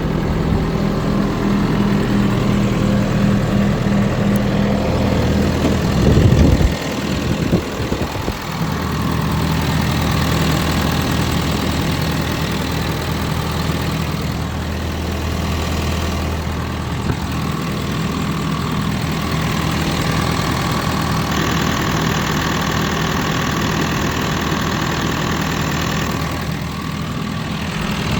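John Deere 310K backhoe loader's diesel engine idling steadily. About six seconds in there is a short burst of louder low rumble.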